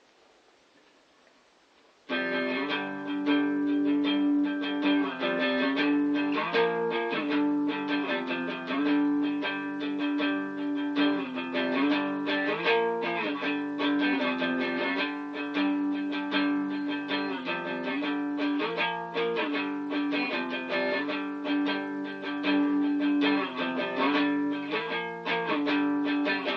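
Guitar playing a picked chord pattern, starting about two seconds in, with the chords changing every second or two.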